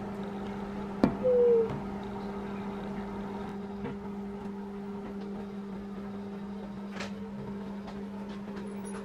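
A steady low electrical hum, with a few light clicks of small plastic toy pieces being handled. About a second in comes a sharp click, followed by a brief high tone lasting about half a second.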